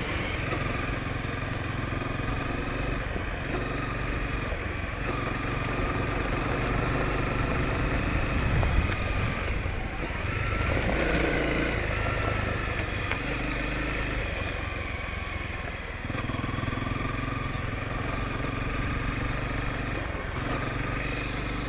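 Honda CRF250L dual-sport's single-cylinder four-stroke engine running under way on a dirt trail. It eases off a little past the middle of the stretch and opens up again about three-quarters of the way through.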